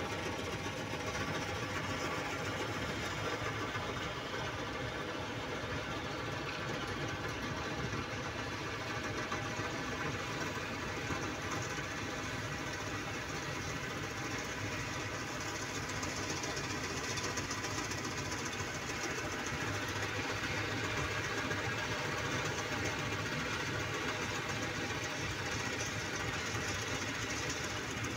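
Old John Deere tractor's diesel engine running steadily with a fast, even chugging while it pulls a loaded trailer slowly.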